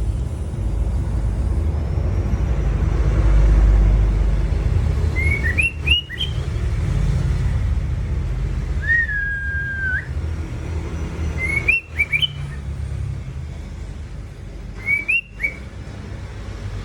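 White-rumped shama calling: three short phrases of quick rising whistled notes a few seconds apart, and one long level whistle about nine seconds in, over a steady low rumble.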